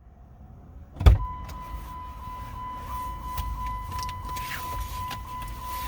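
A car door thumps shut about a second in. A steady high electronic tone follows and keeps sounding over low car-cabin rumble.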